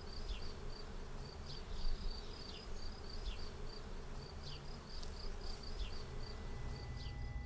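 Steady high-pitched chirping: a short chirp repeating several times a second, with a short falling chirp about once a second, over a low background rumble.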